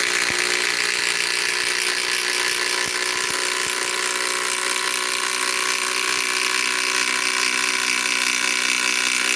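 Metabo HPT WH18DDX subcompact cordless impact driver hammering steadily as it drives a 5-inch ledger lock screw, working near the limit of the small tool. It runs at an even level, then stops abruptly near the end.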